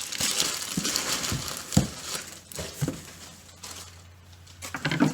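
Packing material crinkling and rustling as a parcel is unwrapped by hand, with a sharp knock a little under two seconds in. It goes quieter for a second or two, then rustles again briefly near the end.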